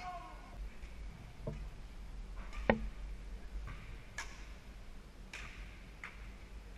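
Badminton rally: sharp ticks of rackets striking the shuttlecock every second or so, the loudest a little under three seconds in. A couple of brief shoe squeaks on the court floor sound in the first second and a half.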